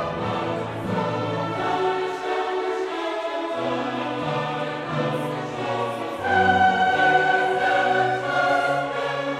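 Background music with long held notes in slowly changing chords, growing louder about six seconds in.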